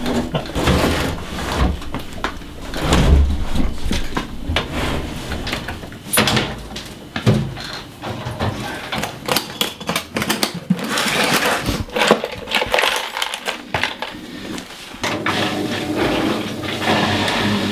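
Irregular clunks, knocks and rattles, with some scraping, as a Bosch washing machine is pulled out from its space and handled.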